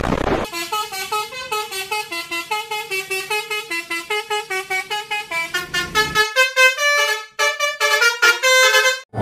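Telolet bus horn, a multi-tone musical horn, playing a fast tune of short notes, about four a second. The notes climb higher and get louder about six seconds in, with a brief break near seven and a half seconds.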